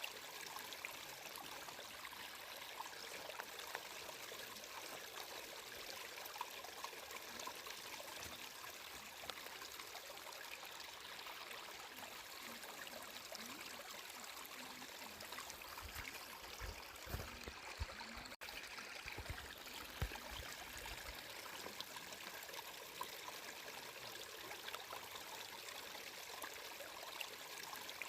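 A small stream flowing and trickling steadily. A few low thuds come through about two-thirds of the way in, with a split-second gap in the sound among them.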